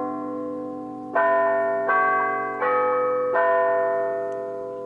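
A run of struck bell-like chimes, four strikes at different pitches about a second apart. Each one rings on and fades until the next.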